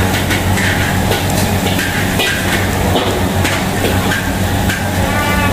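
Steady low machine hum under a haze of noise, with scattered clicks and clatter, typical of a busy open food-court kitchen.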